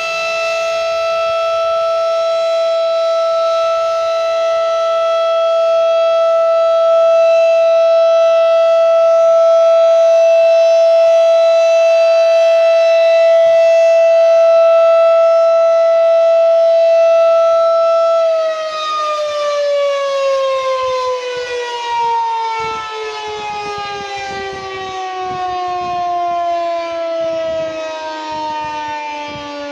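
Outdoor tornado warning siren sounding for a test: it holds a steady high wail, then about 18 seconds in starts winding down, its pitch falling steadily and evenly.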